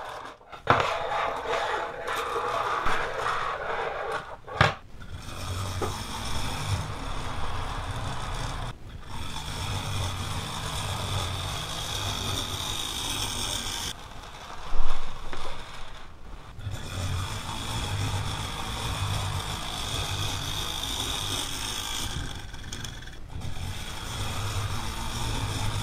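Small parts rattling and scraping as they are spread by hand on a tabletop, then a motorized Meccano (Erector) grading tractor model running: its small motor and gears whir with a low pulsing while the model scrapes along. It stops and starts several times, with one loud knock partway through.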